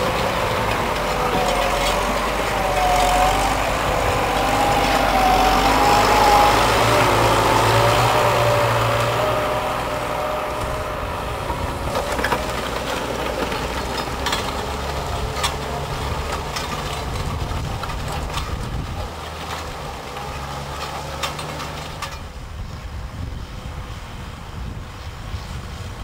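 Tractor diesel engines working under load while pulling reversible ploughs through the soil. First a Case IH 230 CVX, loudest in the first ten seconds, with a wavering whine over the engine note. Then a New Holland TM165, quieter and steadier.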